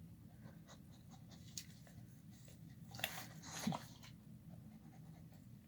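A dog at its food bowl, breathing and snuffling over its food with soft clicks, and one louder snuffle about three seconds in.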